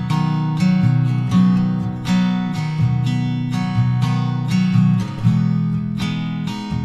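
Background music: acoustic guitar picking and strumming chords, a new note or chord struck about every half second.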